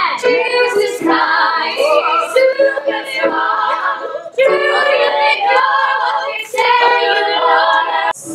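A group of mostly female teenage voices singing together in phrases, with short breaks between phrases about four and six and a half seconds in.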